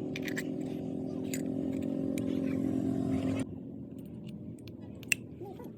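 Motorcycle engine idling steadily, then switched off suddenly about three and a half seconds in. A few light metallic clicks and clinks follow.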